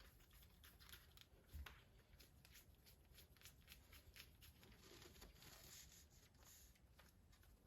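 Near silence with faint, scattered clicks and taps of a small hand tool and plastic RC parts being handled, and a soft knock about a second and a half in.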